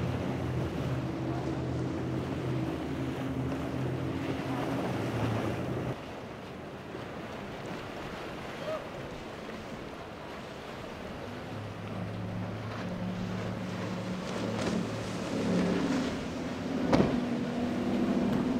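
Outboard motors of center-console boats running hard through rough inlet water, with water rush and wind on the microphone. A twin-outboard boat for the first six seconds, then after a cut quieter wind and water, then a single Mercury outboard coming in with its note rising, and one sharp knock near the end.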